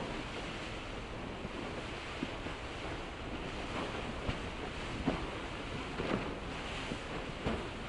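Icebreaker Shirase's bow pushing through broken pack ice: a steady rush of churning water and ice, with irregular sharp knocks and cracks, about half a dozen, as floes strike and break against the hull.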